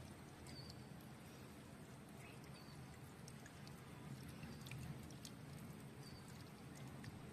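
Quiet outdoor ambience: a steady low rumble with a few short, high chirps and scattered faint clicks.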